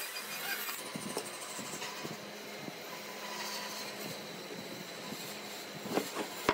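Wood lathe running with a steady motor hum, with a couple of sharp knocks near the end.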